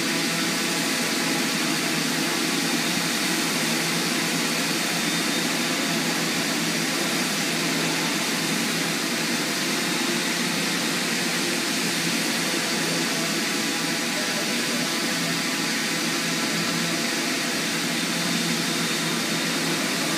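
Small multirotor drone's propellers whirring steadily as it hovers, a constant buzz made of many tones held at one pitch.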